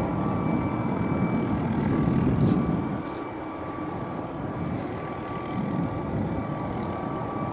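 MD 520N NOTAR helicopter's turbine engine, main rotor and tail fan running as it flies nearby: a continuous heavy rumble with a faint steady whine, growing louder about two seconds in and then easing off.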